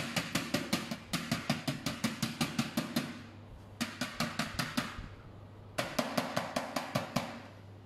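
Oval metal cake molds filled with Japanese cotton cheesecake batter being tapped rapidly on a baking tray, about five or six knocks a second in three runs with short pauses. The tapping knocks air bubbles out of the batter before baking.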